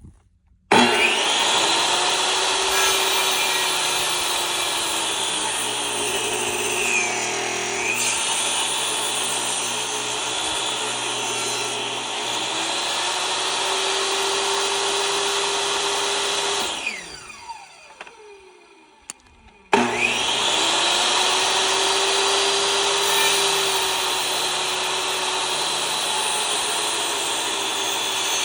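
DeWalt table saw running and cutting a wooden board with its blade set at an angle. About seventeen seconds in the saw winds down with a falling whine, then starts up loud again a few seconds later.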